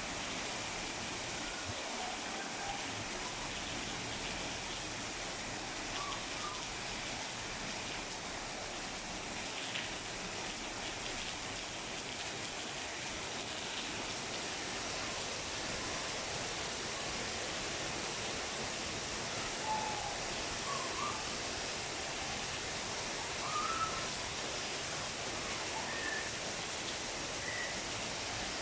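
Steady rainfall, an even hiss, with a few short bird chirps here and there.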